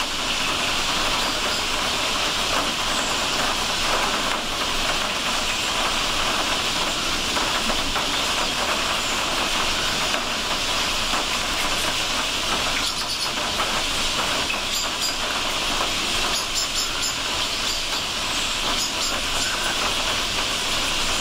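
A huge flock of bramblings in woodland, thousands of birds whose massed calls and movement blend into a loud, steady, hissing din.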